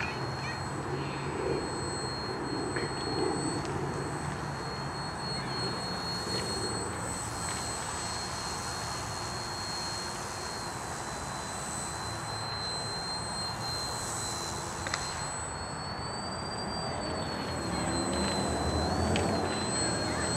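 Electric motor and propeller of a foam RC aerobatic plane (3DEPP Yak) whining steadily in flight, the pitch rising and dipping with throttle changes late on, over a rumble of wind on the microphone. A single sharp click about 15 seconds in.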